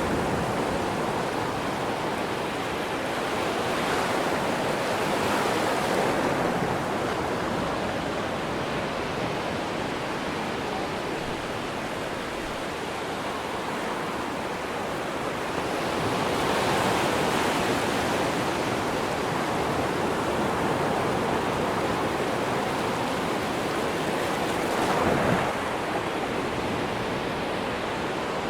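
Ocean surf on a sandy beach: waves breaking and washing ashore in a steady rush that swells louder a few times, with a short, sharper wash near the end.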